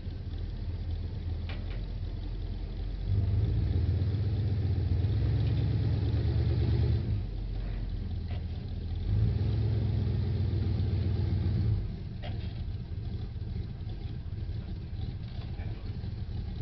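A 1980s Ford pickup's engine running and revving up twice for a few seconds at a time, under load as it pushes another truck backward.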